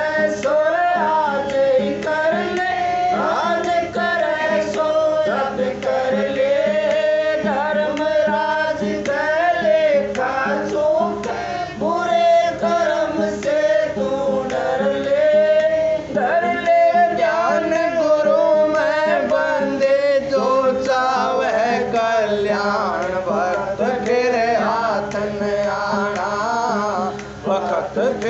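A male voice singing a devotional Hindi shabad (hymn) in a melismatic, gliding melody, with instruments accompanying under steady held tones.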